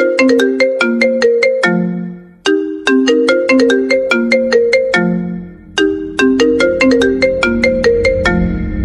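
iPhone ringtone melody of quick struck marimba-like notes, played as a repeating phrase three times with short breaks between. Near the end a low steady bass layer swells in under the notes as the remix builds.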